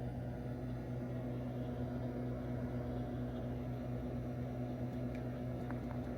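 Steady mechanical hum with an unchanging low drone, and a few faint ticks near the end.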